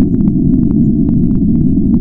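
Underwater-style white noise: a loud, steady, muffled low rushing with faint scattered clicks and pops above it, like small bubbles.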